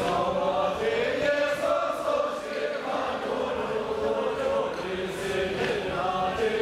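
A group of voices singing a slow, chant-like song together, with long held notes that rise and fall in pitch.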